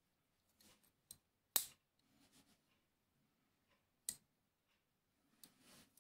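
Sharp metallic clicks of a small steel miquelet flintlock lock being handled: one about a second in, the loudest half a second later, another about four seconds in, with soft handling rustles between.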